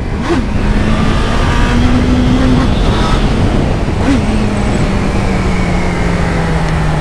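Honda CB1000R inline-four motorcycle engine pulling hard under acceleration, its note climbing over the first few seconds, then easing off and falling slowly as the bike slows, with heavy wind rush over the microphone.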